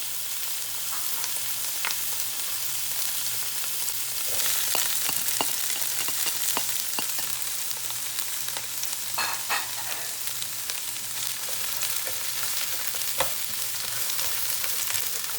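Sliced sweet peppers and onion frying with minced garlic in hot oil, a steady sizzle, while being stirred in the pan, with scattered short clicks and scrapes of the utensil against the pan.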